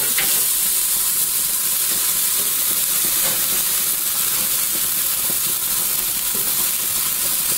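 Spatchcocked chicken and vegetables sizzling on hot grill grates: a steady, even hiss of fat and juices frying.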